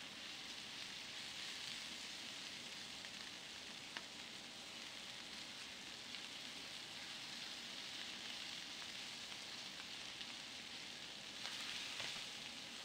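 Steady faint hiss, with a faint click about four seconds in and a couple more near the end, where the hiss briefly swells.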